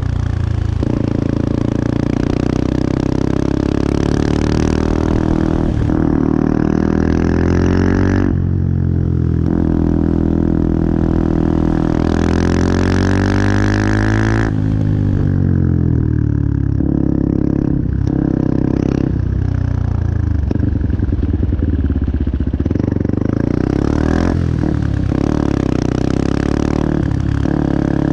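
Benelli TNT 125's single-cylinder four-stroke engine revving: the revs climb and are held high for several seconds, then drop away sharply, followed by a run of shorter, quick throttle blips near the end.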